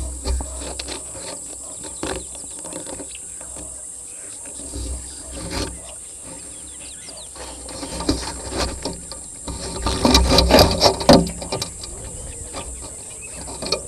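Vervet monkeys handling and clambering over a wildlife camera and its microphone: scratching, tapping and bumping on the housing, with rumbling handling thuds. It is busiest and loudest about ten to eleven seconds in.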